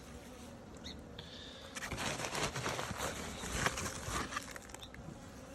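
Dry plant material rustling and crackling as it is handled and packed into a bee smoker, a dense run of small clicks from about two seconds in to near the end.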